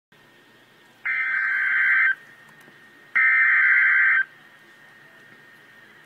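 Emergency Alert System SAME header: two bursts of digital data tones, each about a second long and a second apart. This is the coded header that opens an EAS alert broadcast.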